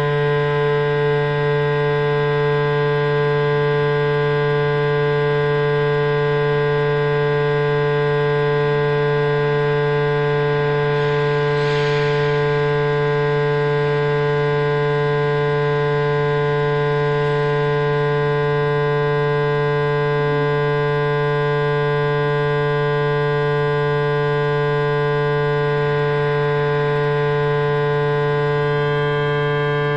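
Loud, unchanging electronic hum made of many held tones stacked from low to high, the drone of the gallery's sound installation. Faint voices sound underneath it now and then.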